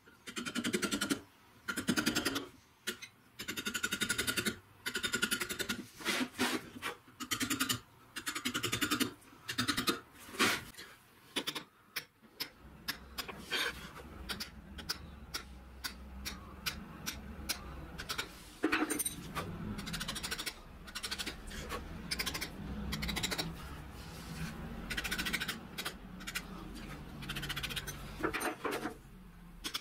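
Steel chisel struck by a hand hammer, cutting letters into Welsh slate: quick runs of light taps, several a second, broken by short pauses. A steady low hum starts about twelve seconds in, under softer, more spaced taps.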